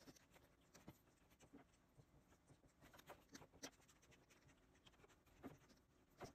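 Faint stylus strokes and taps on a Cintiq pen display's screen, mixed with scattered clicks of keyboard keys.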